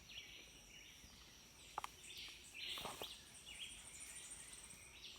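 Faint bush ambience: a steady high-pitched insect drone with scattered bird chirps, and a brief click near the middle.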